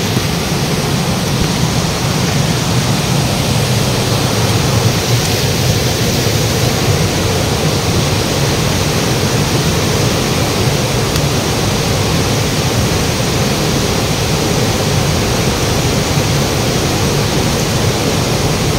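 Steady rushing of a fast-flowing river running over rocks and a small cascade, an even roar with a low rumble underneath.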